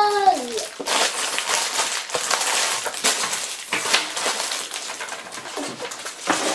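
Thin clear plastic bags crinkling and rustling as they are handled and pulled off mesh squishy stress balls, with a run of short crackles.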